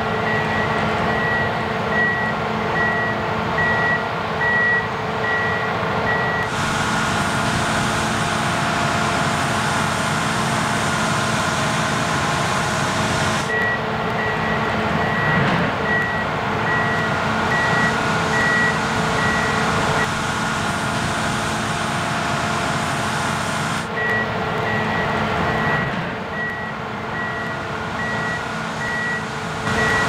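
Fendt Ideal 7T combine harvester running steadily. A high electronic warning beep repeats about three times every two seconds, stopping from about 6 to 13 seconds in and again from about 20 to 24 seconds in.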